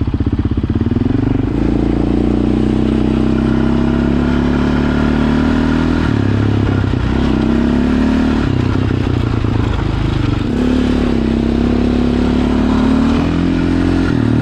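700cc single-cylinder sport quad engine running while being ridden through the low gears, its pitch rising and falling with the throttle and shifting several times. The riders are listening for a scratching noise from the machine, which they later trace to a bent axle rubbing.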